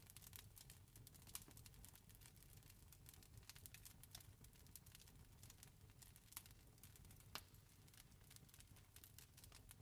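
Campfire crackling softly: irregular small snaps throughout, with a few sharper pops, about 1.5, 6.5 and 7.5 seconds in, over a low steady rumble.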